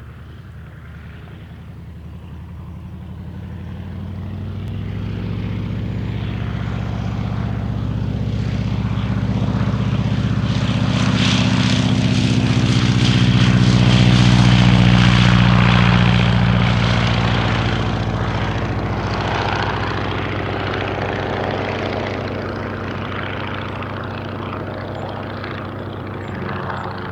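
Boeing Stearman PT-27 Kaydet biplane's seven-cylinder Continental R-670 radial engine and propeller passing by. It grows steadily louder to a peak about halfway through, then fades away.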